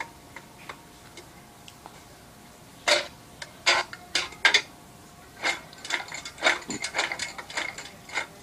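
Cartoon metallic clanking from a robot, played through a TV speaker: a few faint ticks, then four loud clanks about three seconds in, then a quick run of lighter clanks, about five a second, near the end.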